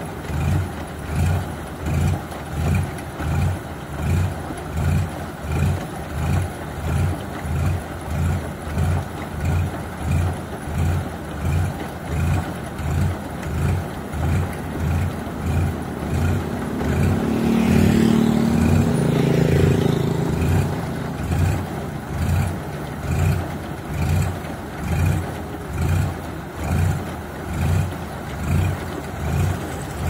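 Rice combine harvester running as it unloads grain through its auger: a steady low engine drone that pulses about one and a half times a second. A louder swell with higher tones lasts a few seconds just past the middle.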